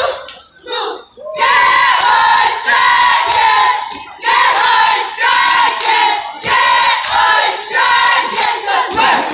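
Cheer squad shouting a cheer in unison, in phrases of a second or two with short breaks between them.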